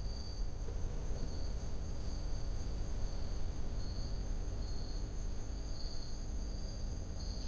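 Crickets chirping in a steady high trill, over a continuous low rumble.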